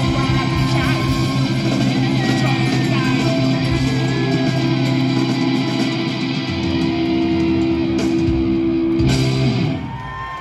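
Live rock band with electric guitar, bass and drums playing the closing held chords of a song. The music drops off about ten seconds in.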